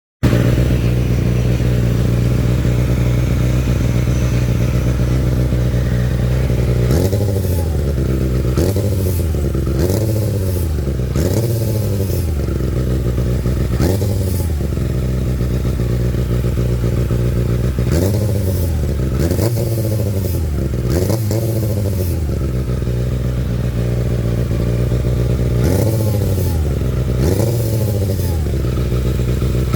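Kawasaki ZX-6R inline-four engine idling steadily, then revved with short throttle blips from about seven seconds in, the revs rising and falling repeatedly. A grinding, clattering noise comes with each turn of the throttle, which the owner is asking about.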